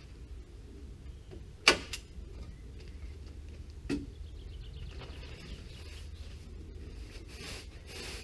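Staple gun firing twice, two sharp snaps about two seconds apart, the first much louder, as it fixes membrane to a timber frame. Membrane sheet rustles faintly near the end.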